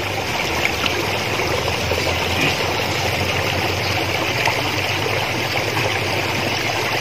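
Water running over rocks: a steady, even rushing.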